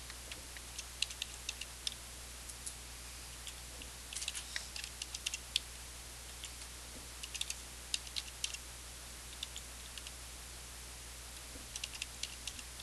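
Scattered clicks of typing on a computer keyboard, in short runs, as numbers are keyed into a table, over a faint steady low hum.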